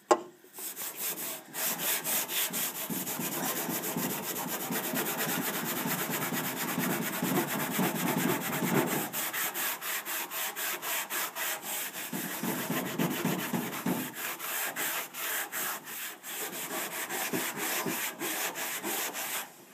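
A Scotch-Brite abrasive pad, wet with diluted CLR, scrubbed back and forth against a painted steel body panel in quick, even strokes, scouring off surface rust.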